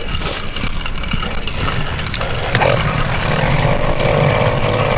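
Motorized bicycle's 66cc two-stroke engine running, with the throttle opened about two and a half seconds in as it pulls away, growing a little louder and steadying at the higher speed. A sharp click or two comes just before.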